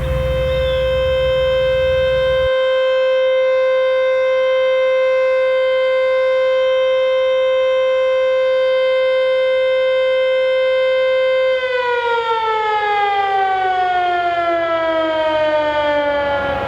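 Outdoor civil defense warning siren sounding one long steady tone, then winding down, its pitch falling steadily from about twelve seconds in.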